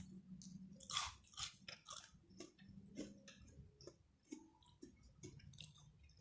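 A person eating close to the microphone: irregular chewing, biting and wet mouth clicks and smacks, the loudest about a second in.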